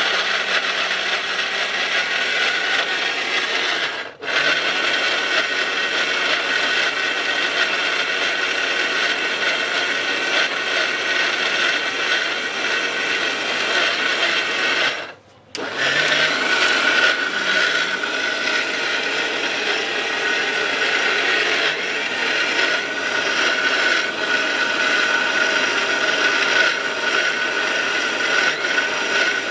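Ricco 1000-watt mixer grinder running at full speed, grinding ginger and chilli with a little water into paste in its small stainless steel jar, with a steady high whine. The motor stops briefly twice, about four seconds in and again near fifteen seconds, and starts straight back up.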